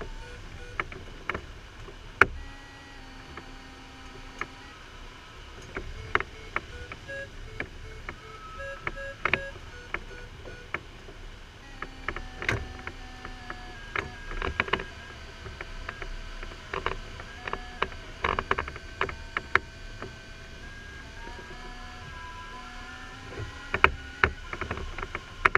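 Glider variometer audio tone sounding inside the LS4 cockpit, stepping up and down in pitch with the climb or sink rate and at times breaking into short beeps. It sits over steady airflow noise, with frequent sharp taps and clicks.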